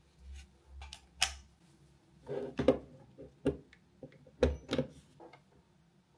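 Scattered clicks and knocks of plastic being handled as a bed lamp's plug is connected to a mechanical timer plug. The sharpest clicks come about a second in and near the middle.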